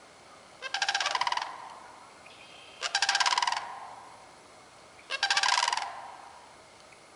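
Sandhill cranes giving their rolling, rattling bugle call three times, each call under a second long and about two seconds apart.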